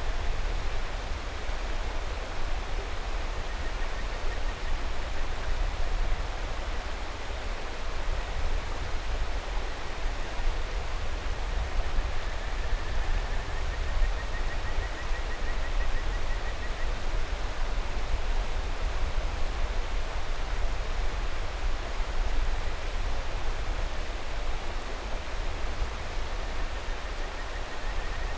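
Mountain river rushing steadily, with faint high trilling calls of kajika frogs (Buergeria buergeri) over it: a short one about four seconds in, a longer one lasting about five seconds from a third of the way through, and another starting at the very end.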